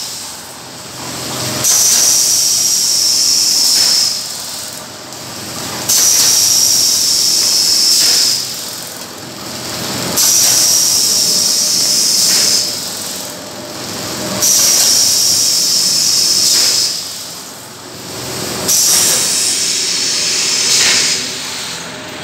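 PP bag-making machine running in a steady cycle: every four seconds or so a loud hiss with a high whistle starts abruptly, lasts about two and a half seconds, then falls back to a quieter machine hum. This happens five times.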